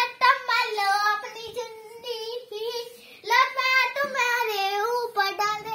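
A young girl singing in a high voice, holding long wavering notes; she breaks off briefly about three seconds in, then sings on.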